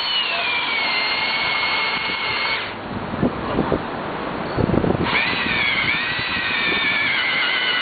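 Power drill boring into a concrete sidewalk: a loud, high motor whine that drops in pitch as the bit bears down. It stops after almost three seconds, a few knocks follow, then the whine starts again about five seconds in.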